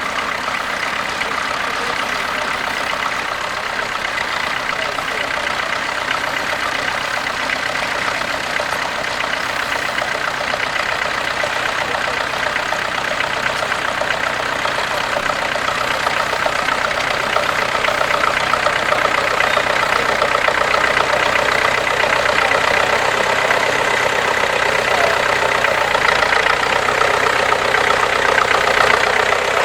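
Tractor engine running steadily, growing a little louder over the second half.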